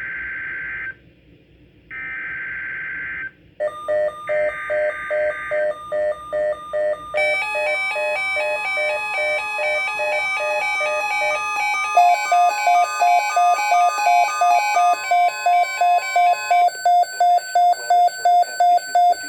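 NOAA Weather Radio emergency alert signal: three short bursts of SAME digital header data a second apart, followed by the steady 1050 Hz warning alarm tone for about nine seconds. The receiving weather radio's own alert beeps repeat rapidly over it from about four seconds in, changing pattern twice, and keep going after the steady tone stops.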